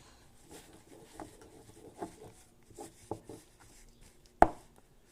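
Light, irregular knocks and scrapes of a spoon working brigadeiro mix in a bowl, with one sharp loud knock about four and a half seconds in.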